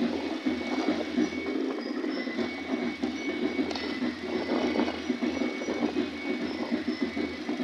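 Vehicle moving along a highway: steady, rough engine and road noise with air rushing past the microphone.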